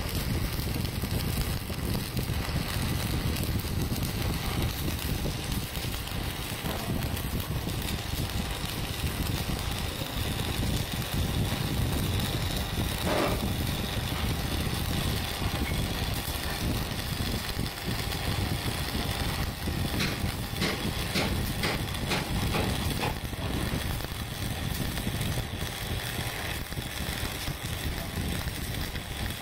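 Electric arc welding: the arc burns continuously with a steady crackling hiss as a weld is run along a V-groove joint.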